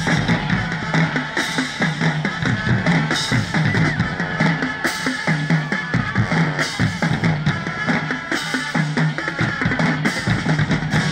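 Marching band drumline playing a cadence: bass drums and snare drums in a steady, driving beat, with no brass playing.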